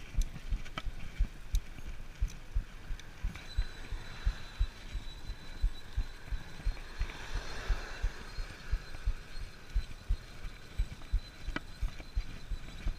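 A piece of tape stuck on a road bike's rear wheel slaps once per wheel turn while riding, making an even, rapid thumping about three times a second. This is the annoying buzzing noise the rider took for something caught on the rear wheel.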